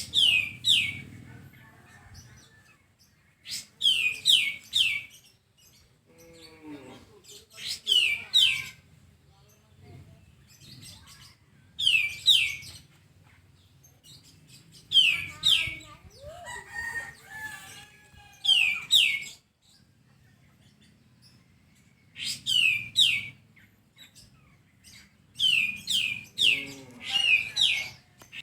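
Pied triller (kapas tembak) singing as a bird-tutoring recording: short loud phrases of two to four quick, high notes falling in pitch, repeated about every three to four seconds, with fainter chirps between them.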